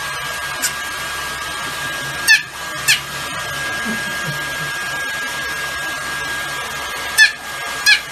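Hair dryer blowing steadily with a thin high whine, drying a small dog's fur. Two pairs of short, high squeaks that fall in pitch cut through it, about two seconds in and again about seven seconds in.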